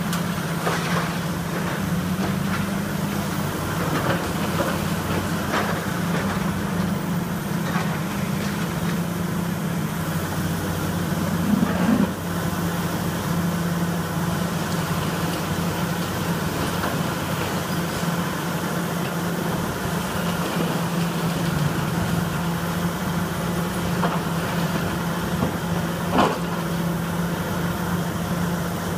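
A demolition excavator's diesel engine runs steadily. Now and then brick and debris crash and clatter as the machine pulls the building apart, loudest about twelve seconds in and again near the end.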